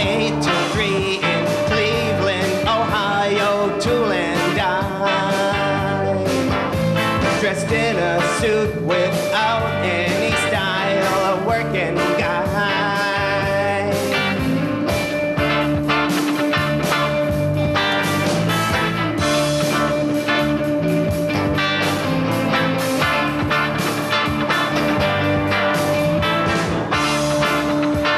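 Instrumental break of a pop song: a lead melody line played over steady band backing with a regular beat.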